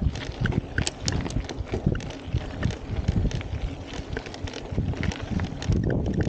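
Mountain bike riding fast over a rough dirt and gravel trail: tyres crunching on the ground and the bike rattling over bumps, with rapid irregular thumps and clicks.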